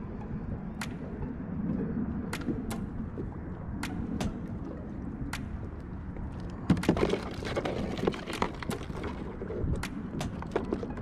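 Wind rumbling on the microphone, with water lapping against the kayak and scattered sharp clicks and knocks; about two-thirds of the way through, a busier spell of splashing and knocking.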